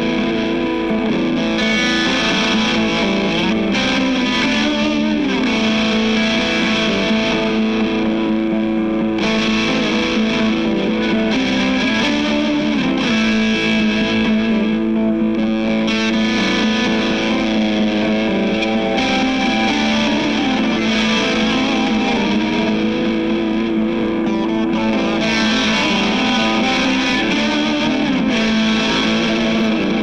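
Electric guitar jamming through distortion and effects, with long held notes and string bends.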